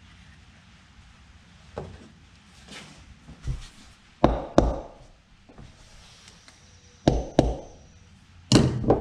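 Hammer knocking a new wheel bearing into the hub of a garden tractor wheel. It starts with a few lighter taps, then comes three pairs of sharp, hard blows.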